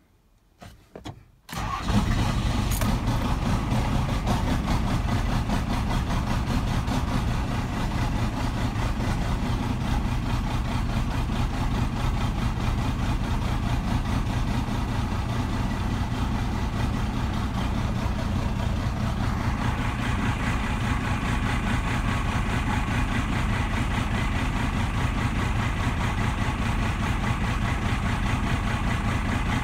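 First-generation Dodge's 5.9-litre 12-valve Cummins inline-six diesel, exhausting through a hood stack, cranking for about a second on a cold start, catching about a second and a half in, then idling steadily, heard from inside the cab. The sound turns somewhat brighter about two-thirds of the way through.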